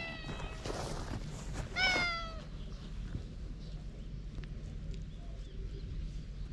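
Cat meowing twice: short calls that fall slightly in pitch, one at the very start and a louder one about two seconds in.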